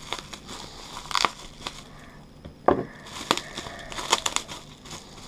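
Clear plastic and bubble-wrap packing crinkling and crackling as hands pull it open to unwrap a fishing lure. It comes in irregular bursts, with a sharper snap about two and a half seconds in.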